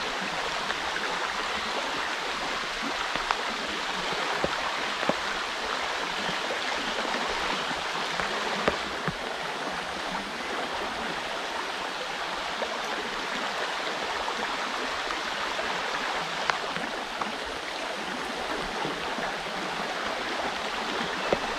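River current rushing steadily, a constant even hiss of flowing water, with a few faint clicks scattered through it.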